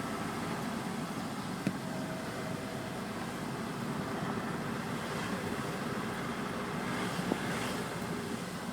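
Steady car engine and road noise heard from inside a moving car's cabin, with two small knocks, one near the start and one near the end.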